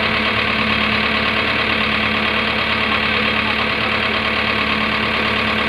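JCB backhoe loader's diesel engine idling steadily.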